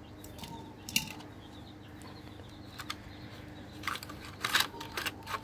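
Plastic blister packaging of a Matchbox diecast toy car crackling and clicking as it is handled and pulled open. There is one sharp click about a second in, then a cluster of crackles near the end.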